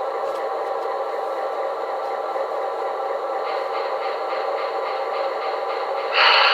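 QSI Maxx Traxx model-train sound unit playing a diesel locomotive engine sound effect through a small speaker, steady and without deep bass. Near the end a louder, higher-pitched sound cuts in sharply.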